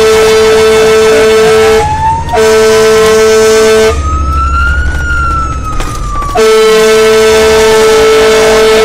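Fire engine's air horns sounding long steady blasts over its wail siren, which climbs slowly in pitch and then falls back. The horns break off briefly about two seconds in, and again for a couple of seconds around the middle, leaving the siren alone.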